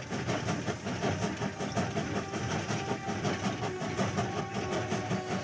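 Electric model train locomotive running on OO-gauge track: a steady motor whine under a quick, even clicking of the wheels over the rails.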